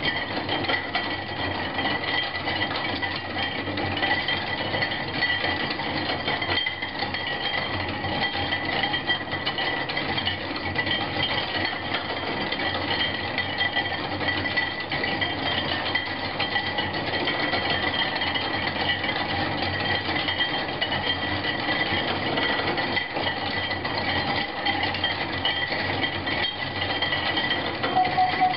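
Hand-cranked scrap-metal kinetic sculpture running as a drawing machine: a steady, dense metallic rattle from its gears and linkages, with a thin high-pitched tone held over it.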